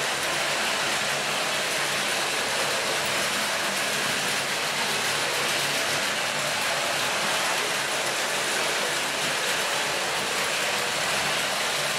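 Several battery-powered Plarail toy trains running together on plastic elevated track: their small motors and gears running steadily.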